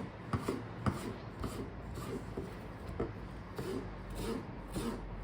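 Hands and utensils handling food on a wooden work surface: irregular rubbing and scraping with light knocks.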